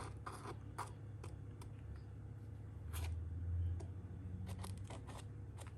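Faint scattered clicks and light taps of hands and tools working adhesive into a plastic fridge handle, over a low steady hum.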